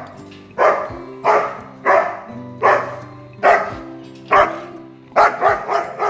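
German Shepherd barking loudly and repeatedly, about ten barks with a quick run of three near the end, driving off a cow at the gate.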